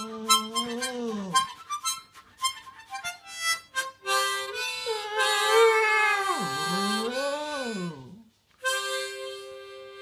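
Harmonica played in held chords while a Staffordshire bull terrier howls along. The dog's howl wavers and slides in pitch, falling away about a second in and swooping down and back up around six to eight seconds. The harmonica stops briefly a little after eight seconds, then comes back in on a steady chord.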